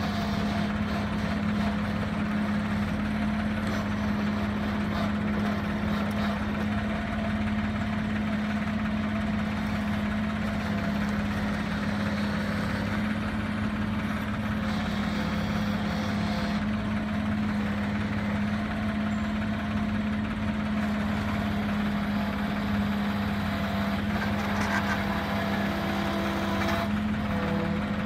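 Bobcat 323J mini excavator's small diesel engine running at a steady speed with an even hum, while its hydraulic boom and bucket are worked.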